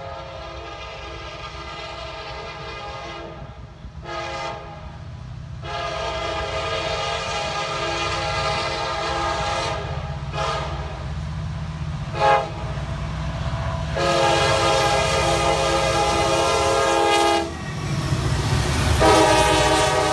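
Diesel freight locomotive sounding its air horn for a grade crossing: several long chord blasts broken by short toots, over the low rumble of the engines. The rumble swells near the end as the locomotives pass close by.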